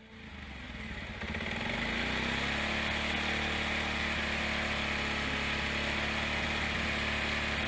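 Motorcycle engine running with a steady hiss over it. It swells up over the first two seconds, then holds steady.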